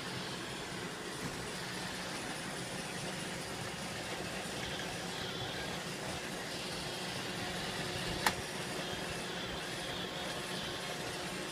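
iRobot Roomba 650 robot vacuum running a cleaning cycle: a steady whir of its vacuum motor and brushes, with one sharp click about eight seconds in.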